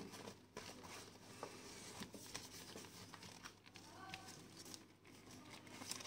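Faint rustling and light clicking of a large paper picture book being handled and shifted.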